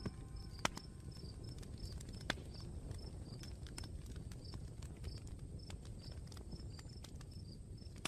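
Crackling fire with a low steady rumble and a few sharp pops, the loudest about half a second and two seconds in, under a regular high chirping of crickets, about two to three chirps a second.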